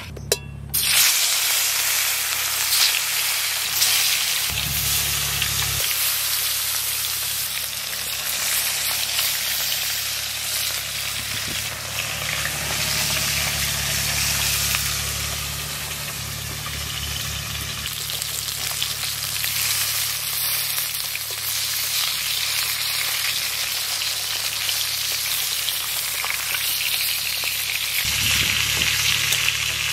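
Turmeric-and-salt-rubbed katla fish steaks frying in hot oil in a kadai: a steady, dense sizzle that starts abruptly about a second in.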